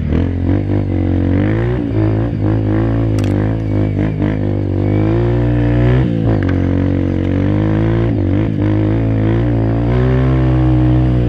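Honda dirt bike engine running under load on an uphill trail climb, its pitch rising and falling repeatedly as the throttle is opened and eased off.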